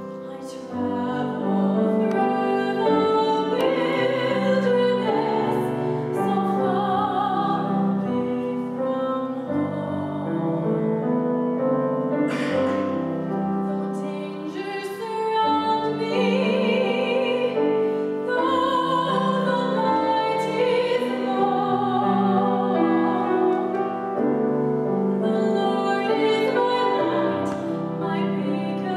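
A young woman sings a song in classical style, with vibrato on the held notes, accompanied by piano.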